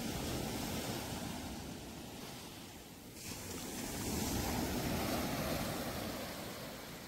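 Gulf of Mexico surf washing onto the beach, ebbing to a lull about three seconds in and then swelling again with the next wave, with some wind buffeting the microphone.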